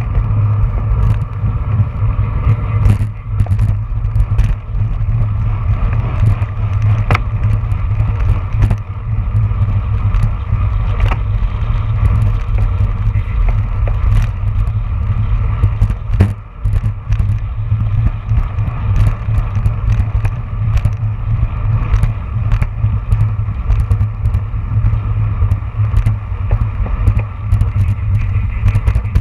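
Wind rushing over the microphone of a handlebar-mounted camera on a road bike at racing speed: a loud, steady rumble, with frequent small clicks and rattles from the bike and camera mount over the road.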